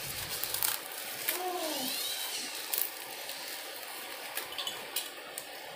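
A dove cooing: one low call about a second and a half in that rises and then falls in pitch, with a few light clicks and knocks around it.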